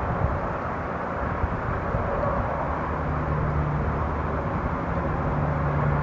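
Wind rumbling on the microphone, with the faint steady hum of distant engines underneath.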